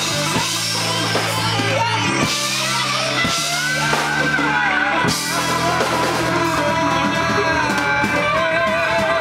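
Live amateur rock band playing: electric guitar and drum kit with a male singer, with a long held note near the end.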